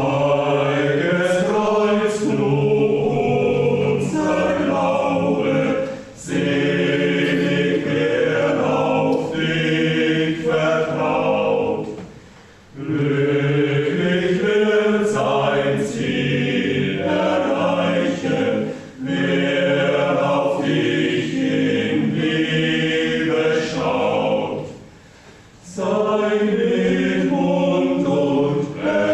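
A choir sings a slow hymn to the Cross in long phrases of about six seconds, with short pauses between them. It is heard through a video call's narrow, muffled audio.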